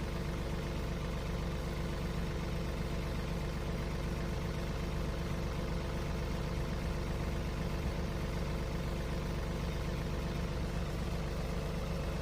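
John Deere 3039R compact tractor's three-cylinder diesel engine idling steadily at low throttle, cooling down after a completed particulate-filter regeneration.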